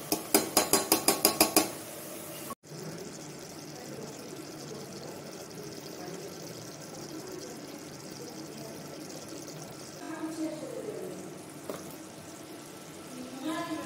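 A steel bowl rapped against the rim of a pressure cooker about nine times in quick succession, ringing metal taps, to knock the last of the ground garam masala into the curry. After that, a steady sizzle of mutton curry cooking in the open cooker.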